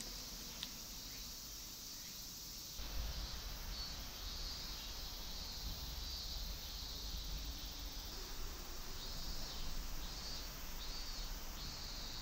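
Insects chirping in repeated pulses over faint outdoor ambience. A low rumble comes in about three seconds in.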